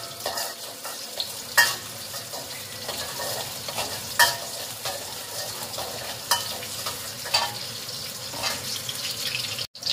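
Chopped chilli and garlic sizzling in hot oil in a stainless steel wok, stirred with a spatula that scrapes and knocks against the pan every second or two. The sound cuts out briefly near the end.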